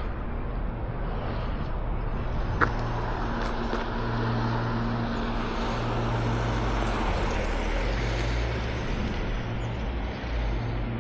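Road traffic on a city street: engines hum steadily and a vehicle's tyre noise swells and fades in the middle. A single sharp click comes about two and a half seconds in.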